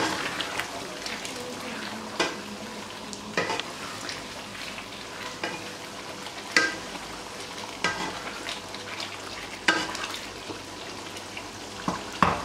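Beef karahi frying and sizzling in the karahi pan as it is stirred, the stirring utensil knocking sharply against the pan several times.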